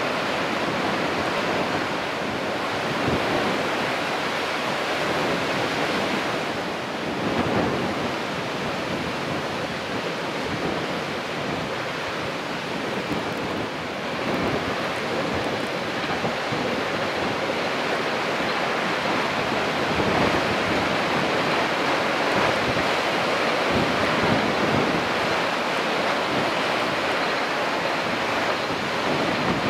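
Strong, unceasing wind rushing across the microphone, with the wash of waves on a choppy sea, swelling and easing in gusts.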